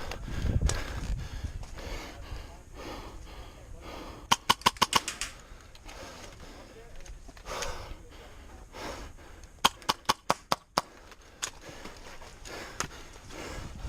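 Airsoft gun firing two short rapid bursts of about seven shots each, one about four seconds in and another near ten seconds, with a player breathing hard in between.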